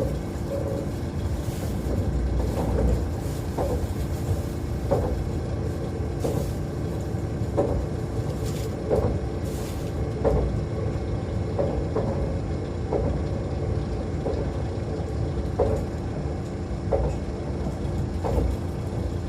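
Running noise heard inside a 681 series electric train car (KuMoHa 681-506), whose traction motors are three-phase squirrel-cage induction motors: a steady rumble of wheels and bogies with a low motor hum, and a short knock repeating about every 1.3 seconds.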